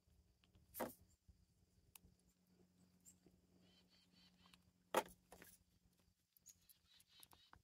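Geese bathing in a shallow plastic paddling pool: two short splashes of water, about a second in and again, louder, about five seconds in, with near silence between them.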